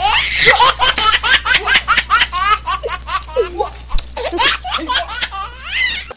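Loud, high-pitched laughter in quick repeated peals, cutting off suddenly at the end.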